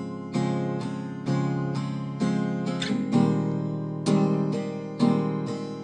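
Acoustic guitar strummed in a steady rhythm, chords struck roughly twice a second and left to ring, with no singing.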